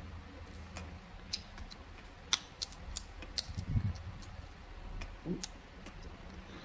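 Scattered small sharp clicks from a Xiaomi CC9 phone's inner cover being pressed back into place by fingers, with a soft low knock about midway.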